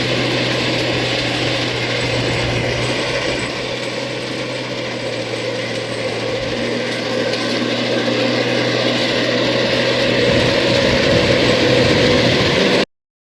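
Rice combine harvester running: a steady low engine hum under a dense, loud mechanical rattle, which stops abruptly near the end.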